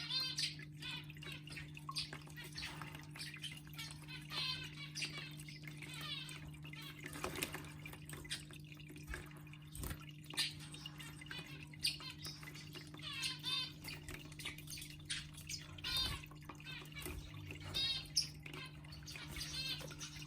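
Water trickling and splashing in a small fountain pool as a Pacific parrotlet bathes in it, with many short splashes over a steady low hum.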